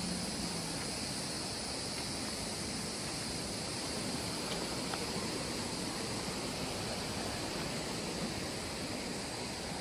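Steady, even rushing of running river water, with no separate events standing out.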